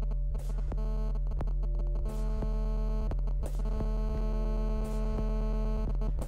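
Electronic drone soundtrack: a loud steady low hum under held synthesizer-like tones that change pitch every second or two, with a short hiss about every second and a half.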